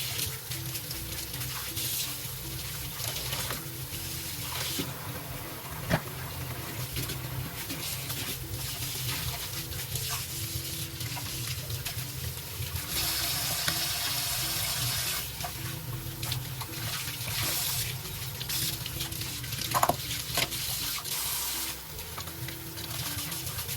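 Water running from a tap into a sink, with a few sharp knocks of things being handled in it, and a brief stronger hiss of the flow in the middle.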